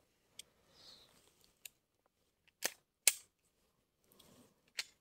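A few scattered sharp clicks and taps in near quiet, the loudest a little after three seconds in.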